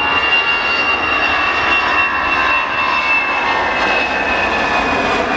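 The CFM56 turbofan engines of an Airbus A318 at takeoff thrust during the takeoff roll. A steady loud rush carries a high fan whine that slowly drops in pitch as the aircraft passes.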